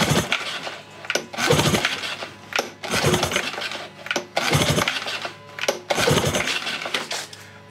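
Recoil pull-starter of a 1980s Suzuki DT-25 two-stroke outboard pulled five times, about a second and a half apart, cranking the dry engine over for a compression test on the top cylinder.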